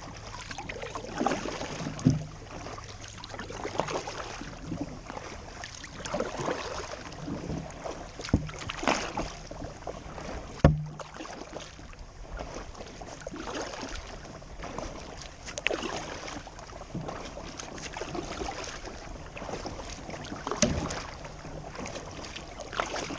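Kayak paddle strokes dipping and splashing in lake water in a steady repeating rhythm, with a few sharp knocks along the way.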